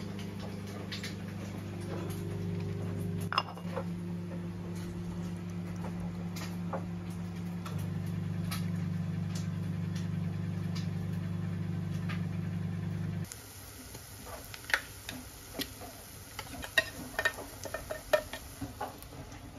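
A cat eating tuna from a ceramic bowl: small wet chewing and licking clicks over a steady low hum. About 13 s in the hum stops and sharper clicks and scrapes follow as tinned tuna is tipped and scraped out of the can onto a bowl of rice.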